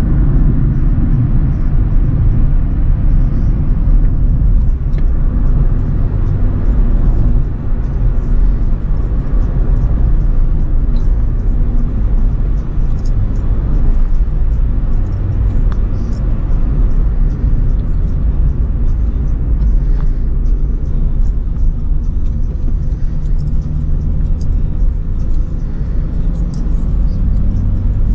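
Acura RSX being driven: a steady, loud low rumble of engine and road noise.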